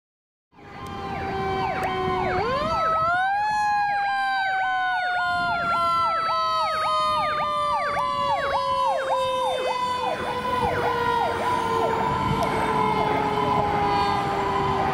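Pierce fire engine's sirens sounding as it responds, starting about half a second in. An electronic siren yelps up and down about twice a second, while a second steady siren tone climbs sharply about three seconds in and then slowly falls in pitch.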